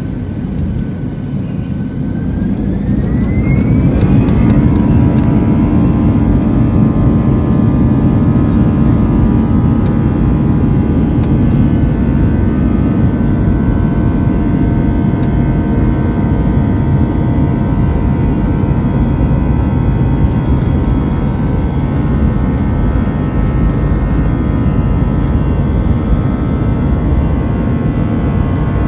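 Airbus A320 jet engines heard from inside the cabin, spooling up for takeoff: a whine rises in pitch over about two seconds, then the engines hold a steady loud roar with a high whine through the takeoff roll.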